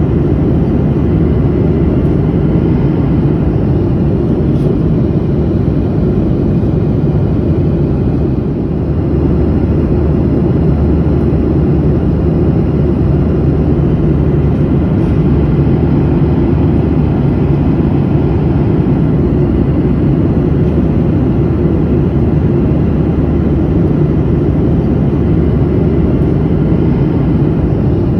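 Steady low drone of an airliner in flight, heard from inside the passenger cabin: engine and airflow noise, heaviest in the low range, with a slight momentary dip about eight seconds in.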